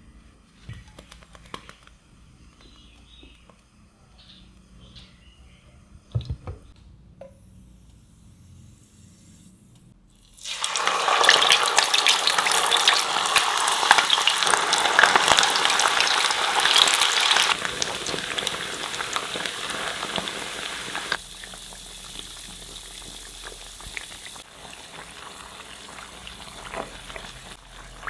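Food dropped into hot cooking oil for deep-frying about ten seconds in: a sudden loud crackling sizzle that eases after several seconds and settles into a quieter, steady frying sizzle. Before it, a few light knocks of handling.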